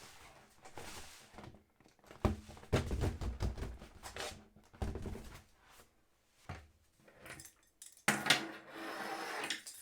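Handling noises from the compressor and its hose: scattered knocks, clicks and rubbing, with a longer rustling, hissy stretch near the end.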